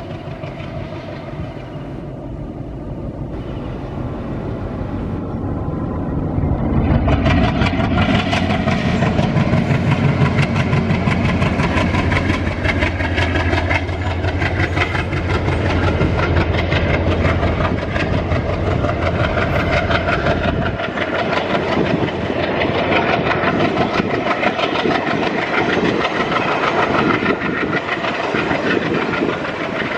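ALCo diesel locomotive working under power, growing louder over the first several seconds and then running hard with a steady low drone. About two-thirds of the way through the low drone drops away and a rougher, clattering rumble follows as the train rolls on.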